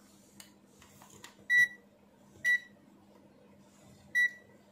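ANENG Q1 digital multimeter giving three short, high beeps, the third after a longer gap, with faint clicks before them, as its buttons are pressed to set it to continuity mode.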